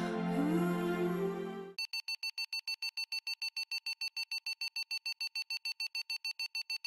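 Soft ambient music ends about two seconds in. An electronic alarm then beeps rapidly in short, even, high beeps, about seven a second.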